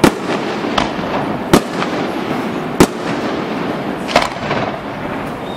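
Aerial firework shells bursting in a display, five sharp bangs spaced roughly a second apart over a steady background rumble of noise.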